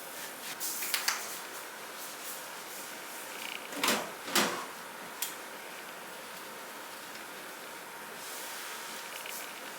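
A few light knocks and clicks of household things being handled: one about a second in, a louder pair around four seconds in and another just after, over a faint steady hiss.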